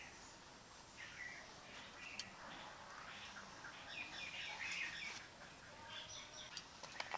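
Small birds chirping and twittering faintly, with a quick cluster of sharp clicks near the end.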